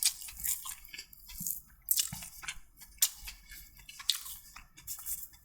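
Close-up chewing of a mouthful of chicken fried rice: wet mouth sounds with small, irregular crunches and clicks.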